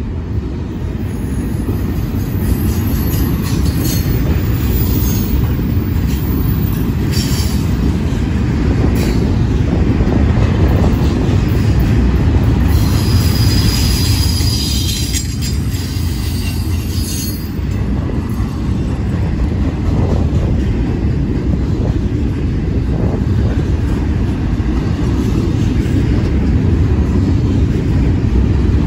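CSX double-stack intermodal freight cars rolling past at close range: a steady heavy rumble of steel wheels on the rails, with high-pitched squeals coming and going, longest from about 12 to 17 seconds in.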